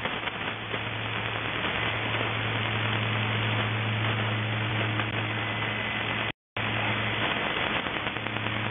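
Shortwave static and hiss from a receiver in lower-sideband mode on 3243 kHz, the channel open with no voice, over a steady low hum. The audio drops out completely for a moment about six seconds in.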